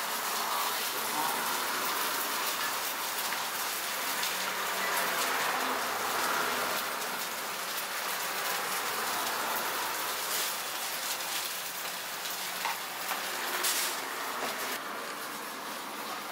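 Steady hissing noise, with a few light clicks in the second half.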